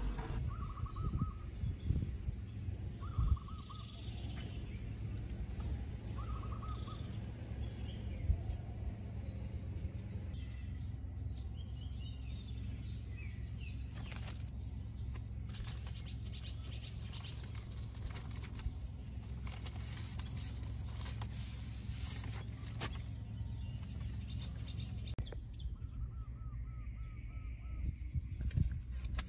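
Outdoor ambience: birds chirping and calling in short repeated phrases over a low steady hum, with scattered clicks and rustles in the second half.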